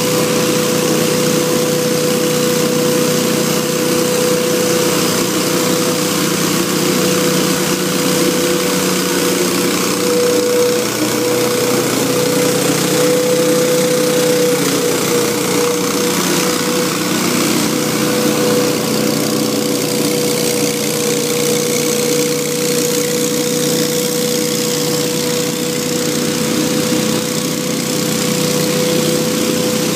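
Hurricane 314 stand-on leaf blower running steadily as it blows leaves: an even engine drone with a strong, constant whine over it.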